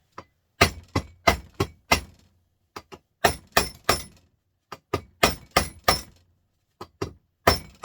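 Hammer blows on the steel casing of a small printer motor held in a vise, over a dozen sharp strikes in quick runs of three to five, each with a brief metallic ring, knocking the housing open to get at the copper winding.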